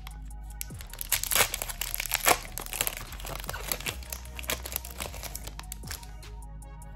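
Foil trading-card booster pack wrapper crinkling and tearing as it is opened by hand, with the loudest crackles between about one and two and a half seconds in, then lighter handling.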